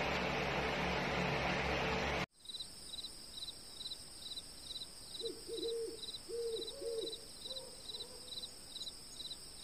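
A steady hiss that cuts off abruptly about two seconds in, then crickets chirping at about two chirps a second, with a few short whining calls in the middle.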